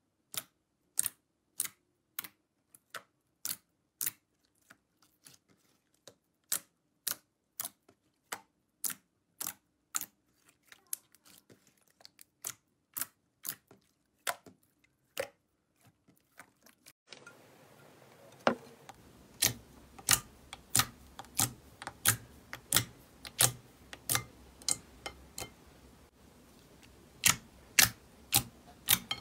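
Slime being pressed and poked by fingers, making a string of sharp clicks and pops, about two a second, as trapped air bursts from it. About halfway through a faint steady hiss comes in under the clicks.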